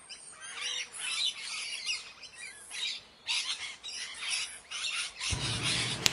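Leafbird calling: a run of short, harsh, high phrases about a second apart. About five seconds in, a low steady background noise joins.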